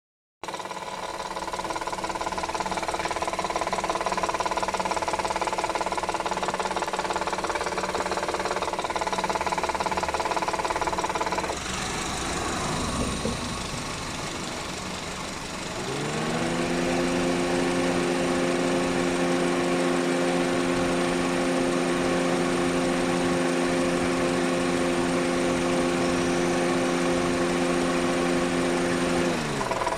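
Honda car engine running with a knock, which the owner ties to the fourth cylinder. A little past halfway the revs rise and are held steady, then drop back near the end.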